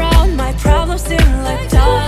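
Background music: a pop song with a singing voice over a steady beat of deep kick drums, about two beats a second.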